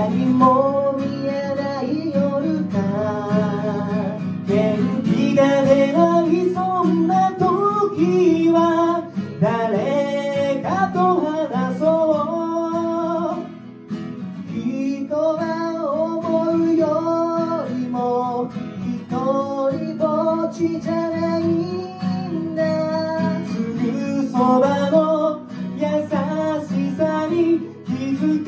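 Two acoustic guitars strummed in chords while two male voices sing a pop ballad together.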